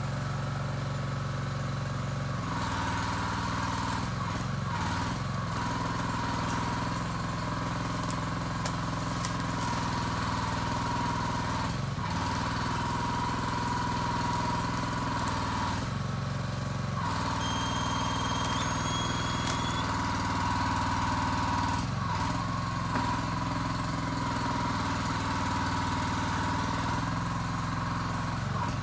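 Small engine running steadily while a Kranman log loader's hydraulic crane lifts and swings a log, with a high whine over it that breaks off a few times.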